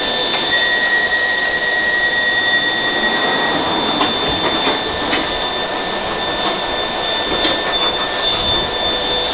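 London Underground D Stock train standing at the platform, its equipment giving off a steady hiss and hum with a constant high whine. A high warning tone sounds for about three seconds from half a second in as the sliding doors close, with a couple of light clicks later.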